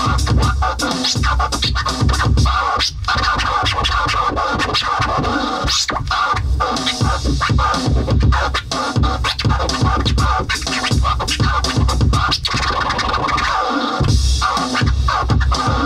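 Electronic beat played on a Maschine pad controller, with record-scratch sounds over a heavy bass and kick pattern. The bass drops out for a moment shortly before the end, then comes back in.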